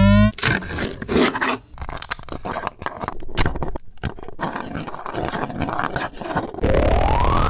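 3D printer stepper motors making quick short moves: a stretch of irregular clicking and scraping buzz. Near the end a motor whine rises steadily in pitch as one axis speeds up.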